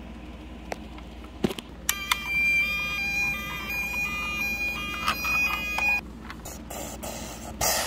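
Toy police van's electronic two-tone siren playing from its small speaker for about four seconds, the pitch stepping back and forth between two notes, set off from the button on its roof light bar. A couple of short knocks of handling come before it and a brief rustle near the end.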